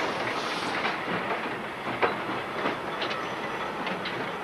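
Train running on rails: a steady rolling rumble with sharp clicks of the wheels passing over rail joints, several times at uneven intervals.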